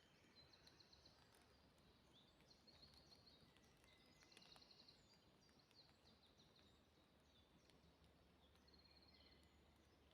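Faint forest birdsong: many short, high, rapid trills repeating every second or so.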